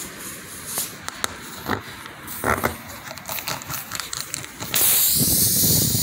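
Tire-plug-kit rasp twisted in and out of a puncture in a car tire's tread: rubber scraping with a few scattered clicks. About five seconds in, a loud steady hiss starts.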